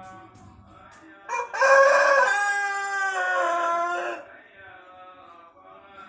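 Pelung rooster crowing once: a long crow of about three seconds that starts a little over a second in, opens with a short note, then holds its notes while stepping gradually down in pitch. Faint chant-like music with singing plays underneath.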